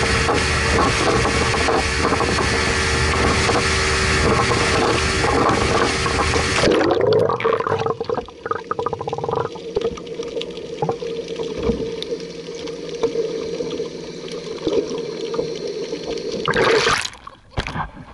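Boat motor running under loud rushing wind and water noise, with a steady hum. About seven seconds in the rushing drops away abruptly, leaving the hum and splashing water, with a brief loud rush of water near the end.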